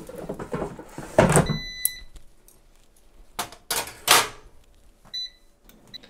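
Air fryer basket sliding back into the fryer and shutting with a loud clunk about a second in, answered by a short electronic beep. Two more knocks follow, then short beeps near the end as the touch control panel is pressed to set the temperature.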